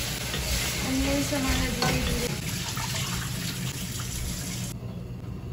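Kitchen tap running into a stainless steel sink while dishes are washed by hand, with a clink of a dish about two seconds in. The running water cuts off suddenly near the end.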